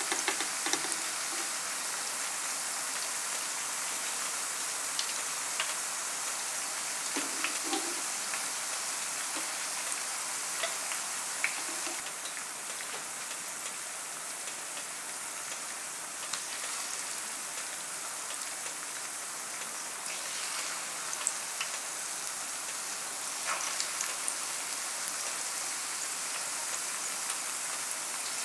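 Plantain slices deep-frying in hot oil: a steady sizzling hiss with scattered pops and crackles, easing a little for a while around the middle.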